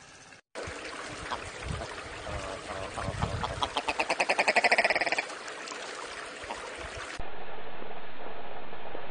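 Willow ptarmigan calling: a rapid rattling series of harsh notes that grows louder for about two seconds, over a rustling background. Around seven seconds in it gives way to a steady hiss.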